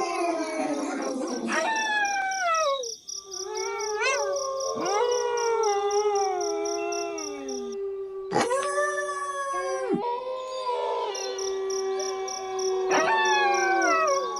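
A pack of wolves howling in chorus: several overlapping howls slide up and down in pitch while one low howl holds steady underneath. A faint regular high chirping, like crickets, runs behind them.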